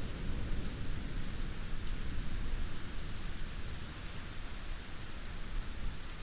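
Heavy rain falling steadily, with a low rumble underneath that eases off about two-thirds of the way in.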